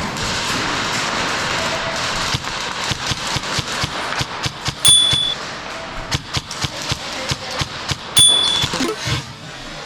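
Airsoft gunfire: a fast, irregular string of sharp pops and cracks from shots and BB hits, starting a couple of seconds in. Two louder hits, about 5 s and 8 s in, each ring briefly with a high tone.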